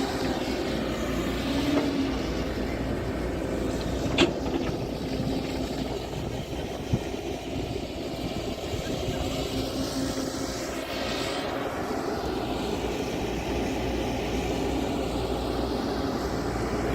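An engine running steadily, with a sharp knock about four seconds in and a small click a few seconds later.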